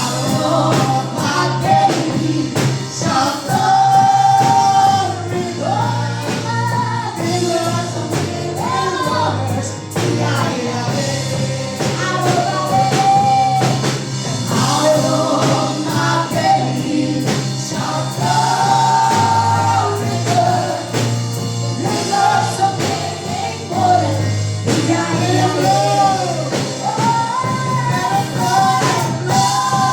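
Gospel song with voices singing together over a band with bass and drums.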